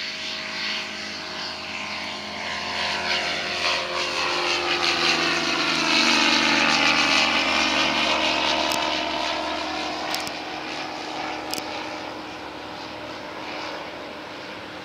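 Aquila A211 light aircraft's Rotax four-cylinder engine and propeller at climb power just after take-off. The drone swells as it passes overhead about halfway through, then fades as it climbs away, its pitch dropping.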